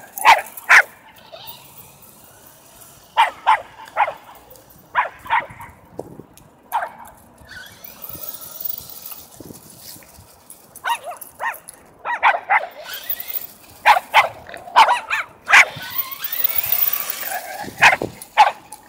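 Dogs barking in quick runs of two or three sharp barks, again and again, while chasing a radio-controlled truck.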